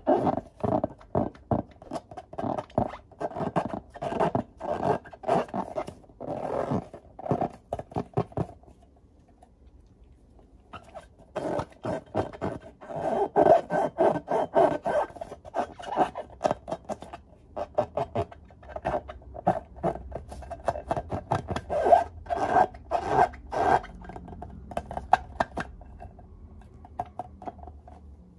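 Hands squeezing and rubbing filled latex balloons: quick, irregular rubbing strokes of rubber against skin. There is a pause of a couple of seconds about a third of the way through, and the strokes grow fainter near the end.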